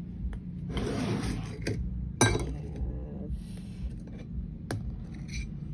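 Small baking pan and kitchenware being handled on a counter: a few sharp clinks and knocks, the loudest a little over two seconds in, with short bursts of rustling between them.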